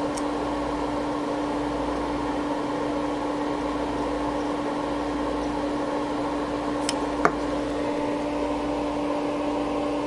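Steady hum and fan whir of running bench test equipment, with one strong held tone. Two small sharp clicks about seven seconds in, from handling the SMA connectors.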